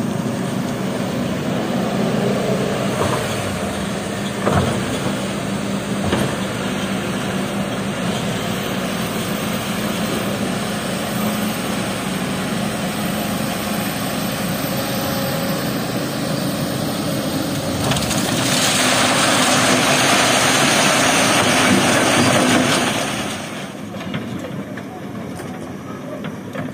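Kobelco hydraulic excavator's diesel engine running steadily as the machine works. For about five seconds in the second half a louder rushing noise rises over the engine, then the level drops near the end.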